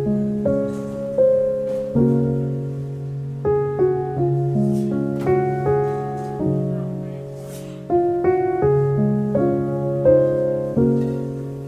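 Slow, gentle solo piano music: single notes and soft chords struck about once a second, each ringing and fading into the next.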